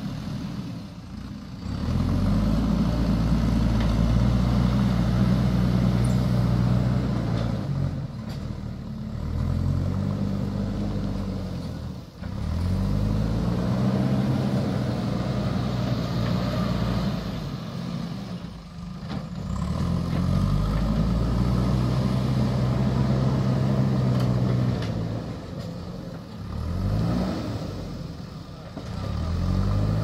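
JCB backhoe loader's diesel engine revving up and holding high for several seconds, then dropping back toward idle, about five times over, as the machine's arm and bucket work.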